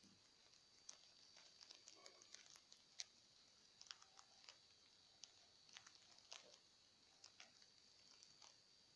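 Baby rabbits nibbling a cauliflower leaf: faint, irregular crisp crunches and clicks of teeth biting and tearing the leaf. A faint steady high whine runs underneath.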